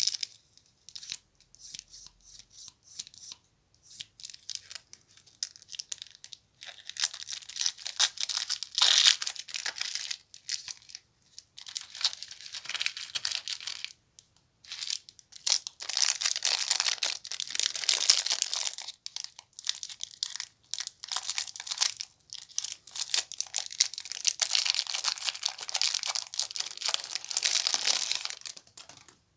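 Plastic lollipop wrappers, a cellophane bag among them, crinkling and rustling as they are pulled off by hand. A few small crackles at first, then several long stretches of dense crackling with short pauses between them.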